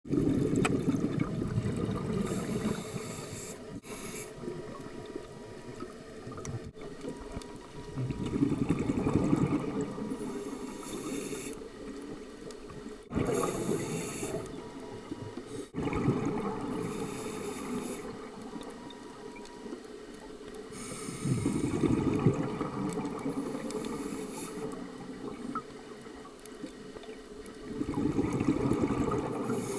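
A scuba diver breathing through a regulator underwater: the hiss of each inhalation through the regulator alternates with the bubbling rumble of exhaled air. The breaths repeat every several seconds.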